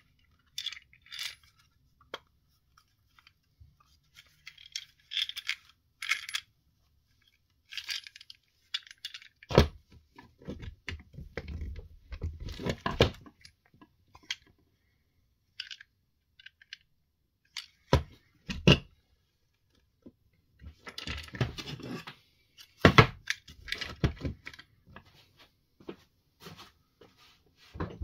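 Small metal parts and tools being handled while working on a Spinlock XA rope clutch: irregular metallic clinks, taps and knocks with short scraping stretches, the loudest knocks about a third of the way in, past halfway and near the end.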